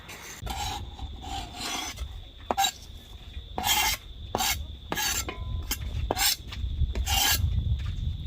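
Hands rubbing and mixing powdered seasoning into raw chopped rooster meat: a series of rough scraping, rubbing strokes, about a dozen, at uneven intervals.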